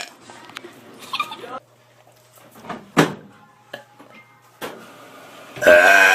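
A quiet stretch with faint clicks and a sharp knock about halfway through, then a loud, deep burp begins about half a second before the end.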